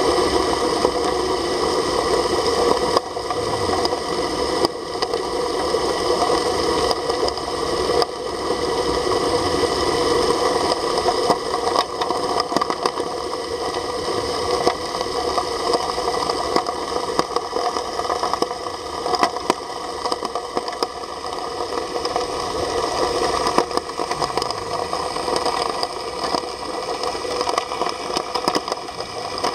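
Dragflow submersible agitator dredge pump running underwater, a steady mechanical drone with several held tones and constant fine crackling as its agitator churns the seabed into slurry.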